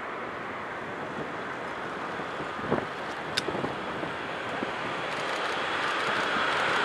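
Articulated low-floor tram approaching on street track, its running noise growing steadily louder through the second half, with wind buffeting the microphone.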